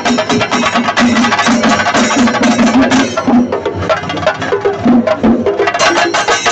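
Kerala temple percussion: chenda drums beaten fast with sticks in a dense, driving rhythm.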